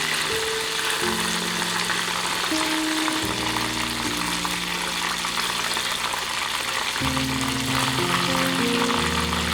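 Food sizzling steadily in a hot pan, a continuous crackling hiss, with soft background music playing underneath.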